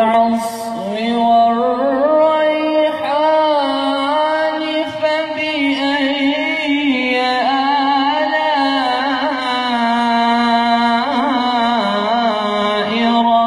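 A solo voice chanting a melismatic Quran recitation (ašere), its melody winding in long ornamented runs over a low drone that the choir holds, the drone stepping to a new pitch a few times.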